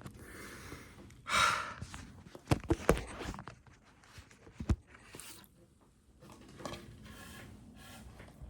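A person takes an audible deep breath about a second in, followed by a few sharp taps and clicks between about two and five seconds in, with faint room noise around them.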